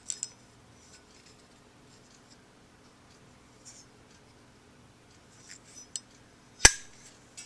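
A lighter being handled: a few faint clicks, then one sharp, loud click about two-thirds of the way through.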